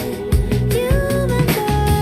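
Pop song playing: a sung melody over bass, guitar and a steady drum beat.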